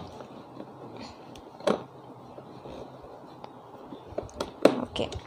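Hand screwdriver tightening the screws that fix the metal mounting plate to the underside of a moulded bar-stool seat: a few scattered clicks and knocks, one about a second and a half in and a cluster near the end.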